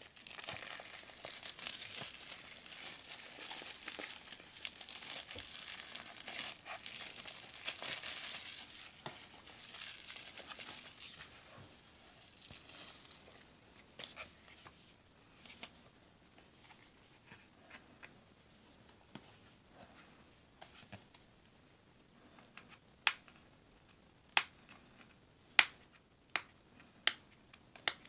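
Clear plastic wrap being peeled and torn off a small cardboard product box, crinkling steadily for about ten seconds. Then quieter handling of the box, and a handful of sharp clicks near the end as fingers pick at the cardboard.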